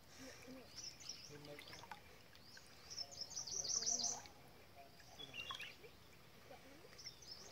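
Wild birds calling, with scattered short high chirps and a quick run of rapid high notes about three seconds in, the loudest sound.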